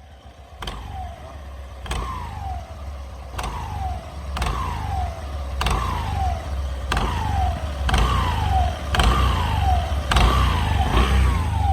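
Scooter engine and stock CVT drive running with a repeated howl: about every second and a quarter a click, then a whine falling in pitch, growing louder. This is the whirring howl of a stock CVT clutch that shudders on take-off.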